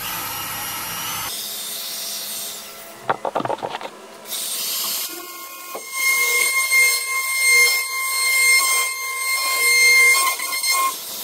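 Compact trim router with a flush-trim bit running and cutting into the plywood hull and epoxy to widen the centerboard-trunk slot: a steady motor whine under a rougher cutting sound that rises and falls as the bit bites, stopping just before the end.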